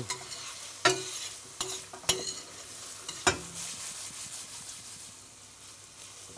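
Sliced mushrooms sizzling in a hot stainless steel frying pan while a spoon stirs and scrapes them, lifting the browned fond from the pan bottom as it deglazes in the mushrooms' own juices. A few sharp knocks against the pan come through the sizzle, the loudest about a second in and just past three seconds.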